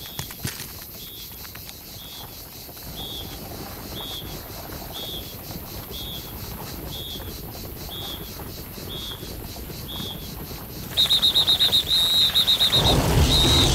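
Cartoon nature sound effects: a short high chirp repeating about twice a second over a faint outdoor background. About eleven seconds in, a much louder burst of rapid high-pitched chirping takes over, and a low rumble swells in near the end.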